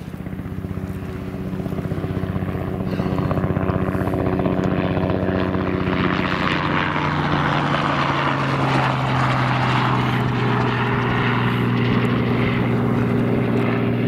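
Light two-bladed helicopter flying past low, engine and rotor drone with a fast rotor beat. It grows louder over the first few seconds, and its pitch drops about halfway through as it goes by.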